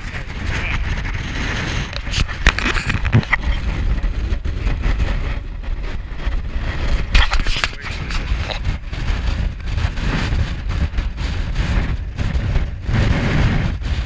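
Strong wind buffeting the camera's microphone: a heavy, gusting low rumble, with a few sharp knocks partway through.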